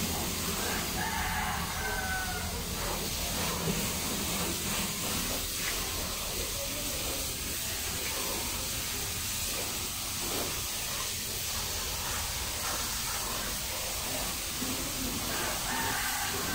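Garden hose spray nozzle hissing steadily as water rinses a car's body. A rooster crows briefly about a second in and again at the end.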